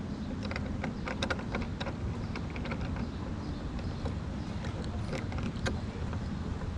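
Small, irregular clicks and taps of hand tools and metal parts being worked on a model airplane engine, over a steady low rumble.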